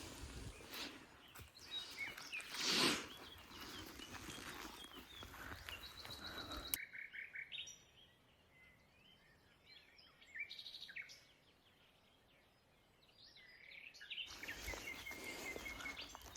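Small forest birds chirping and calling in short high notes, heard most clearly in a quiet stretch in the middle. Before and after it there is rustling handling noise, with one loud knock about three seconds in.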